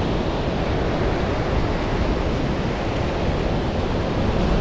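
Steady rush of ocean surf breaking on the beach, mixed with wind buffeting the microphone.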